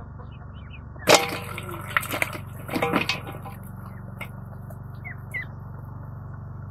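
A sharp metallic clang about a second in, with a brief ringing, then several lighter knocks and clatters: vegetables dropped into a steel bowl. A few short bird chirps come later, over a steady low hum.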